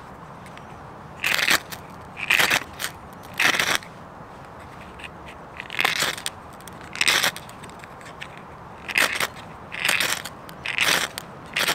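Ferrocerium rod (fire steel) struck again and again with its striker: about ten short, sharp scrapes in irregular runs a second or so apart. Each strike throws sparks onto a tray of fine wood shavings to light the tinder.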